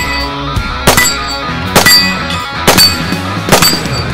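Heavy rock music with sharp metallic clangs about once a second, each leaving a short ring.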